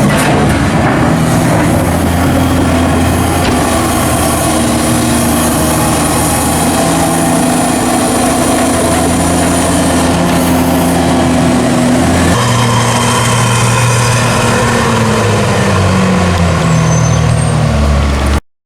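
Heavy diesel farm machinery of a maize silage harvest running steadily under load, the engine note shifting about twelve seconds in, then cutting off abruptly near the end.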